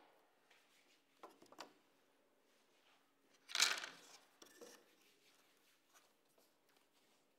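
Thin wooden veneer strips handled on a wooden workbench: a few light clicks about a second in, then a veneer slid across the bench top with a brief rubbing rustle about three and a half seconds in, the loudest sound, followed by small handling knocks.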